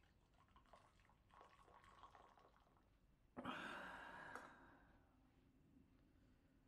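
Water poured from a stainless kettle into a stainless steel mug, faint, then a sudden loud rush of noise about three and a half seconds in that lasts about a second and fades.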